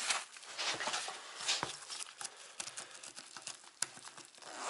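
Handling noise of unpacking: plastic packaging and air-cushion film rustling and crinkling as a nylon tool pouch is lifted out of a cardboard box. Scattered small clicks, with a soft knock about a second and a half in.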